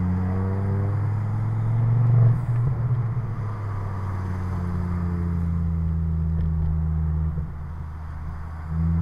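Ford Focus ST 225 Mk2's turbocharged 2.5-litre five-cylinder engine and exhaust heard from inside the cabin. It pulls harder briefly about two seconds in, then runs steadily at a light throttle, eases off about seven seconds in and picks up again near the end.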